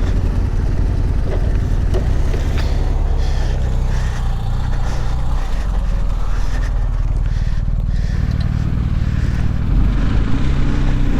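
Yamaha Ténéré 700's parallel-twin engine running at low revs off-road, its pitch shifting with the throttle, over a haze of wind and tyre noise. It gets a little louder near the end.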